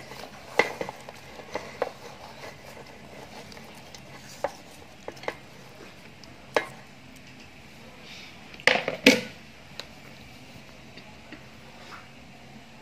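Scattered clinks and knocks of kitchen handling against a metal cooking pot, a dozen or so separate short strikes, with the loudest cluster about nine seconds in.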